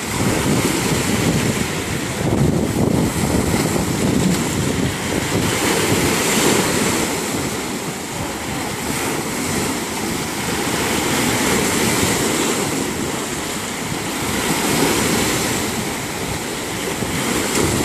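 Sea waves washing in, a continuous rushing that swells and ebbs every few seconds, with wind buffeting the microphone.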